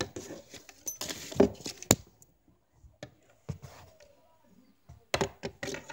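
Hockey stick working a ball on a wooden floor: scattered sharp clacks and short scrapes, with a quick run of taps near the end.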